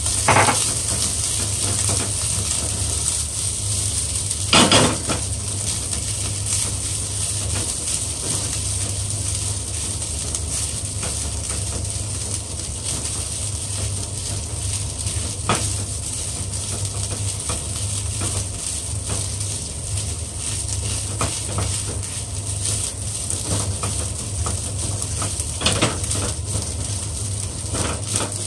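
Rice stir-frying in a nonstick pan: a steady sizzle as a plastic spatula keeps turning it, with the spatula knocking and scraping against the pan now and then, loudest about five seconds in and again near the end. A steady low hum runs underneath.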